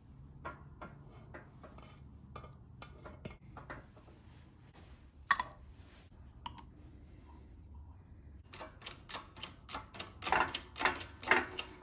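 Metal parts clinking and tapping as a flanged cover and a 30 mm socket are set onto a transfer case in a shop press, with one sharper clack about halfway through. In the last few seconds comes a quick run of metallic clicks, about five a second, growing louder.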